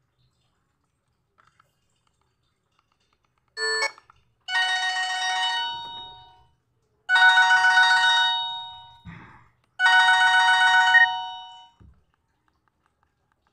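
Huawei F362 phone playing a ringtone: a short beep, then three melodic chiming phrases about two and a half seconds apart, each fading out. A brief rustle falls between the second and third phrase.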